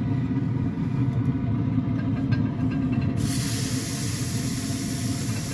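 Yoder pellet smoker running with a steady low rumble. About three seconds in, a high hiss joins.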